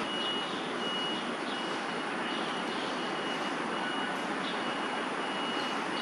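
A thin high-pitched beep repeating in short dashes, irregularly about every half second to second, over a steady even hiss.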